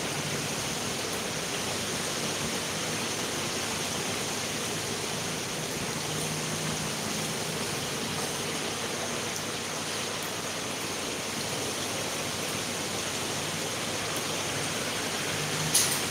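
Steady, even rushing hiss with no change, and a single sharp click near the end.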